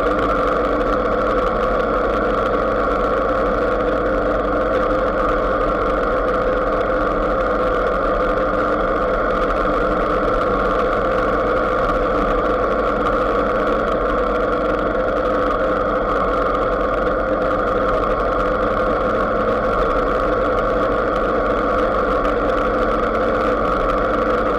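Motorcycle engine running at a steady, unchanging pitch while cruising at an even speed.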